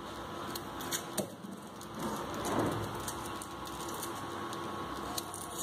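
Small kitchen knife peeling the dry, papery skin off red onions: faint crackles and small clicks from the skin and blade, over a steady low hum.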